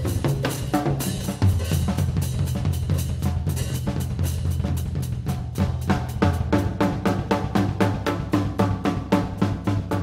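Drum kit played live: quick snare and tom strokes over bass drum. About halfway through, the strokes settle into a fast, even run.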